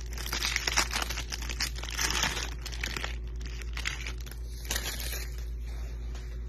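Clear plastic wrapping on a stack of football trading cards crinkling and tearing as it is pulled off by hand, in uneven bursts that die down near the end.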